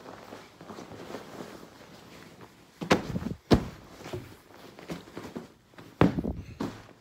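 Bed linen and pillows being handled close by: soft rustling of the bedding, with three loud thumps, about three seconds in, half a second later, and again about six seconds in.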